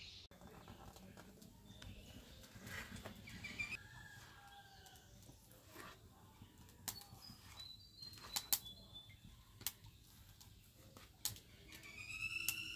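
Fresh bottle gourd leaves being handled, with sharp snaps as their stalks are broken off and peeled, several in the second half. Faint bird calls sound in the background.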